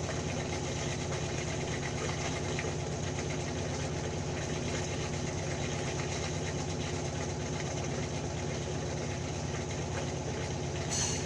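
Washing machine running with a steady, droning mechanical rumble and a fast even flutter low down, with a short hiss near the end.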